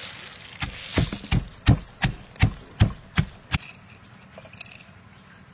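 Stone pestle pounding garlic, shallots and black peppercorns in a stone mortar: about nine heavy strikes, two or three a second, stopping about three and a half seconds in.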